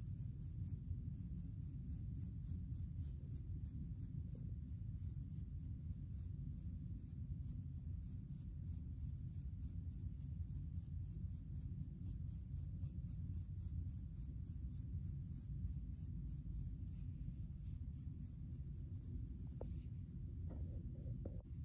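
Fine-tooth comb scratching through short, coarse hair and a flaky, dandruff-covered scalp in quick repeated strokes, over a steady low rumble.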